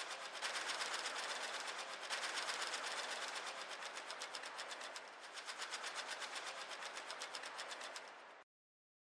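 Split-flap departure board clattering as its flaps flip through characters: a fast, even rattle of clicks, about six or seven a second, that dips briefly midway and cuts off suddenly near the end.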